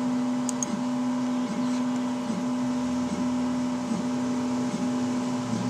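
Tiertime Up Mini 2 3D printer running a print as it lays down a raft: a steady motor whine with a brief wobble in pitch about every 0.8 s as the head moves back and forth, and a lower hum joining near the end.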